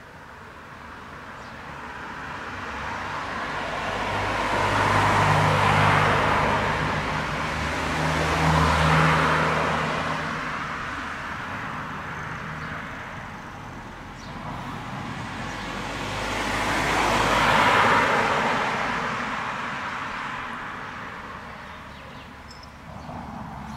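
Motor vehicles passing close by one after another: the sound swells and fades with peaks about six, nine and eighteen seconds in, and the first two passes carry a low engine hum.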